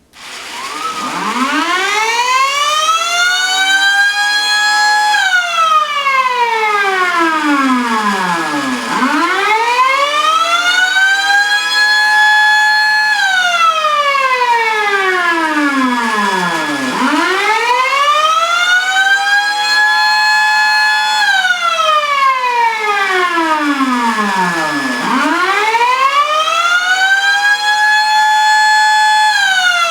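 Miniature Thunderbolt-style tornado siren sounding its attack signal with the chopper on level 4, running on newly replaced collector rings. It starts right away, its pitch rising over about four seconds, holding a moment, then falling, in repeated cycles about every eight seconds.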